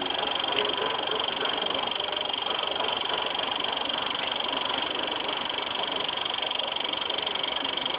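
Running HHO (hydroxy) electrolysis setup: a steady buzzing hiss with a thin high whine, while the cell gives off fine bubbles at about 2.7 volts and 20 amps.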